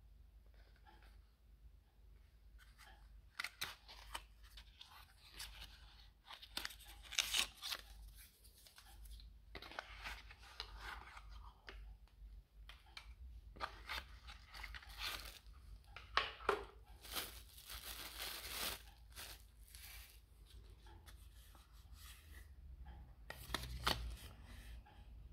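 Cardboard box being opened and handled, its flap tearing, then a paper leaflet unfolded, with irregular crackling and rustling and a few sharper snaps.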